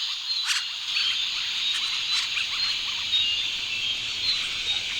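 Chorus of frogs and insects: a dense, steady high buzz with many short, repeated high chirps and a few sharp clicks.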